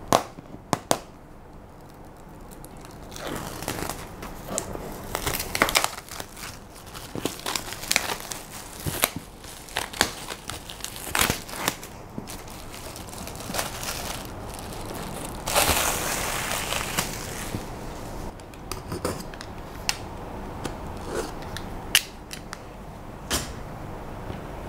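Clear plastic wrapping crinkling, crackling and tearing as it is pulled off a cardboard product box, with a longer stretch of ripping about sixteen seconds in and light knocks of the box being handled.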